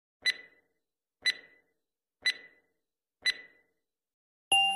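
Four short, sharp ticking beeps, one a second, like a countdown or clock-tick sound effect, followed near the end by the sudden start of intro music.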